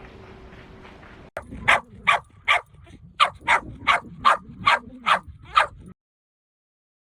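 Shetland sheepdog (Sheltie) barking: a run of about ten sharp, high barks in quick succession, starting after a short click about a second in and stopping abruptly near the end.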